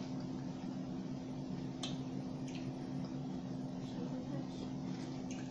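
Eating sounds: a few short clicks and smacks of people chewing and handling boiled shrimp, over a steady low hum.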